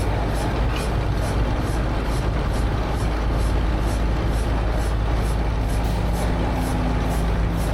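A heavy engine running steadily, with a regular tick about three times a second over its low rumble.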